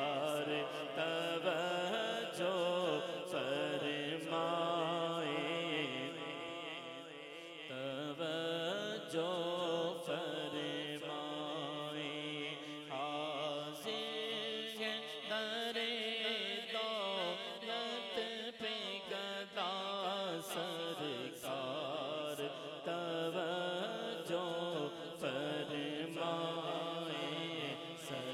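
A man's solo voice singing an Urdu naat, a devotional poem in praise of the Prophet, without instruments. It is a slow chanted melody of long held notes that waver and bend, with no pause.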